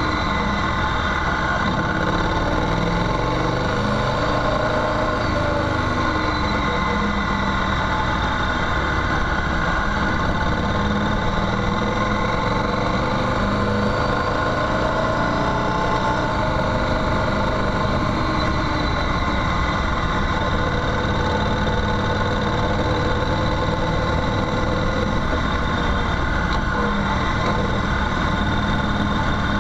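Motorcycle engine running steadily at a low road speed, its pitch rising and falling a little with the throttle.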